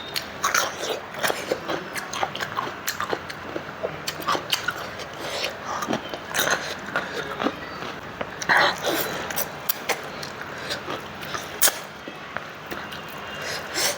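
Close-up eating sounds: a person biting and chewing food, with many quick wet mouth clicks and smacks. There are two louder, longer sounds about six and a half and eight and a half seconds in.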